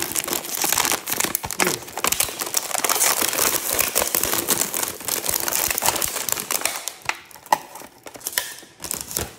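A silver foil snack bag crinkling as it is opened and handled, with a clear plastic cookie tray rustling as it is pulled out. The crinkling is dense for most of the time and thins into a few separate rustles near the end.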